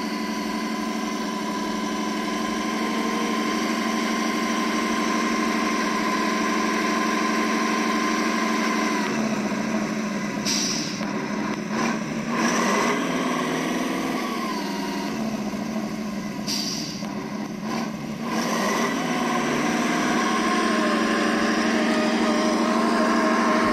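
Simulated truck diesel engine sound from the RC model's sound module, played through its small speakers: steady running at first, with the revs changing through the middle as the truck crawls, and two short high hisses about ten and sixteen seconds in.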